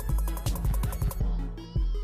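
Electronic background music with a heavy, regular bass beat.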